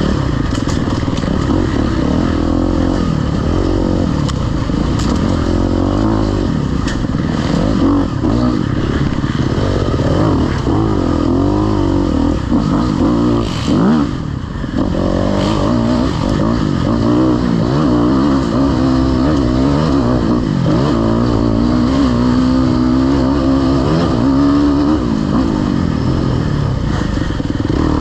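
Off-road dirt bike engine revving up and down without a break as it is ridden hard over rough terrain, with a short let-off of the throttle about halfway through. Scattered clicks and knocks come from the bike working over the ground.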